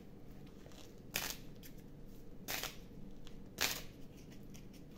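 A person breathing close to the microphone: three short, soft breaths spaced about a second apart over a faint steady room hum.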